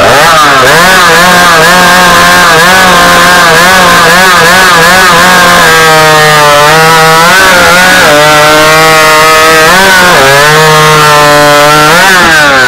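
Stock-class two-stroke competition chainsaw running flat out through a timed cut. Its pitch keeps wavering and dips several times as the chain loads in the wood, recovering each time, then falls away near the end as the throttle is let off.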